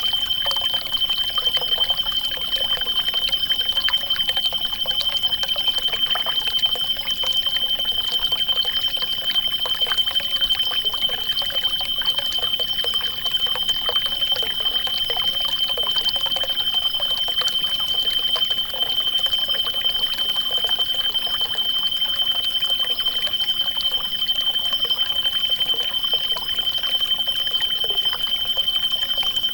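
Forest nature ambience: a steady high-pitched tone held throughout over a continuous trickling, water-like crackle.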